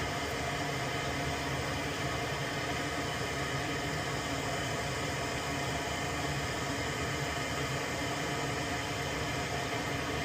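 Steady blowing hiss with a low hum underneath, from a running fan-driven bench tool used for desoldering.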